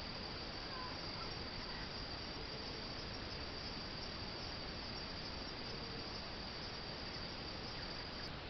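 A cricket trilling in one unbroken, high, steady note that stops abruptly near the end, over a steady hiss.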